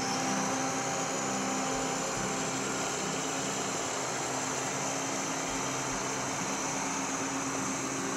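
Wilmar Eagle 8400 self-propelled sprayer's engine running steadily as the machine drives slowly past, with a thin high whine over the engine note.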